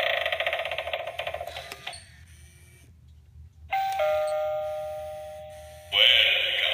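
Halloween novelty doorbell toy playing its electronic sound effects. A spooky electronic sound fades out over the first couple of seconds. After a short silence, a doorbell chime of a few steady tones rings out about halfway and dies away, and a new bright electronic sound with a rising glide starts near the end.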